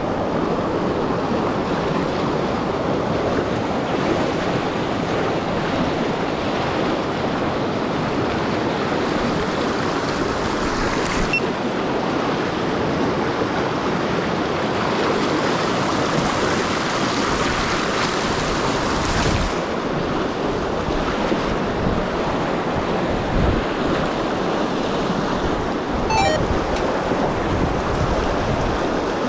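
Mountain river water rushing steadily over a shallow riffle, with wind buffeting the microphone at times.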